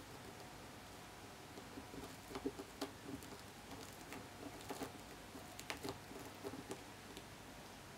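Faint, irregular small clicks and scuffs from a Scottish Fold kitten nosing and pawing inside a sisal-rope cat-tree cube, with a cluster of sharper clicks about two and a half seconds in and more between about five and six seconds.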